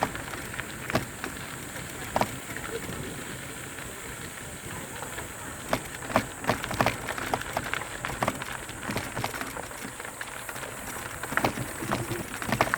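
Mountain bike rolling down a dirt trail: steady tyre and wind noise, with clusters of clicks and rattles as the bike goes over bumps, thickest a little past the middle and again near the end.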